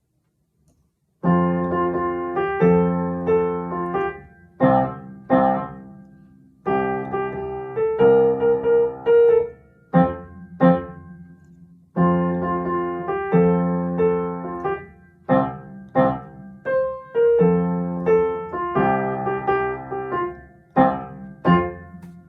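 Piano playing a march tune in chords: after about a second of silence it comes in with sustained phrases broken by short gaps and a few short, detached chords.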